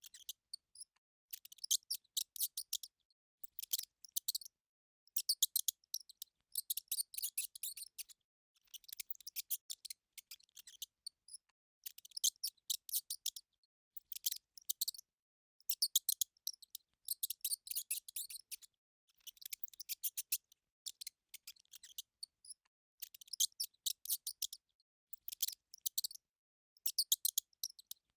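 Bursts of rapid, high-pitched clicking chirps, like an insect or small critter, each lasting about a second and repeating roughly every two seconds with short pauses between.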